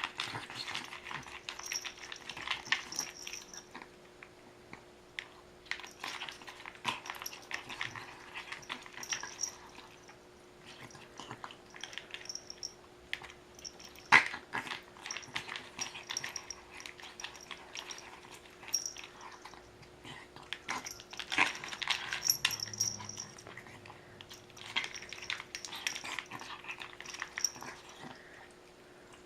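A dog eating and drinking at its bowl: irregular runs of quick clicks and smacks, with one sharper, louder click about 14 seconds in, over a faint steady hum.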